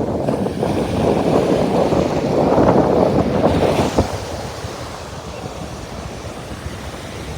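Sea surf breaking and washing up the beach, with wind buffeting the microphone. The surge is loudest at first and falls to a softer, steady wash about four seconds in.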